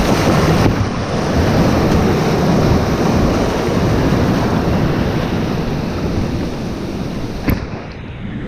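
Waves and surf washing, with wind buffeting the microphone; the noise eases near the end, and a single sharp knock comes about seven and a half seconds in.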